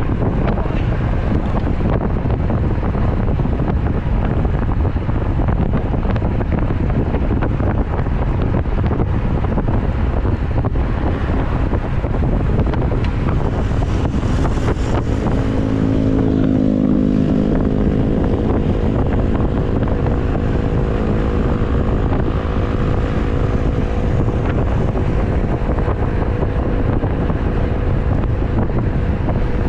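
Strong wind buffeting the microphone of a bicycle-mounted camera during a road ride, a loud steady low rumble. About halfway through, a humming tone with overtones rises out of the rumble and slowly fades.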